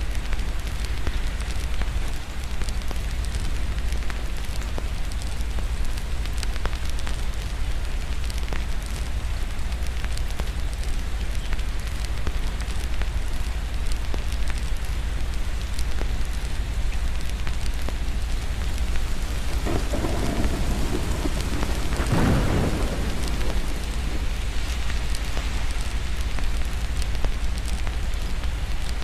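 Steady rain with scattered crackling clicks from a fireplace, and a roll of distant thunder that swells about twenty seconds in and fades within a few seconds.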